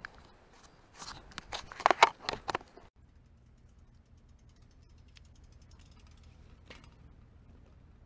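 A rapid clatter of sharp clicks and knocks lasting about two seconds, like a cooler and fishing gear being handled, that stops suddenly and gives way to a faint steady low hum.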